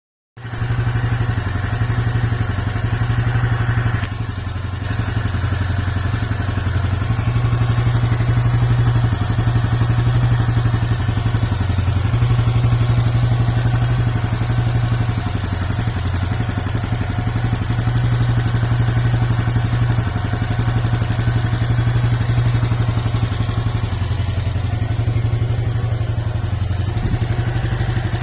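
Honda Super Cub 110 (JA07) air-cooled single-cylinder four-stroke engine idling steadily with a light clattering rattle, the カタカタ noise that the owner traced to a slightly bent crankshaft. Its level dips briefly about four seconds in.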